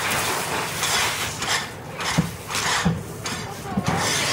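The plastic top of a wicker-look cooler table being twisted and lifted by hand: a run of scraping rasps and light knocks of plastic on plastic.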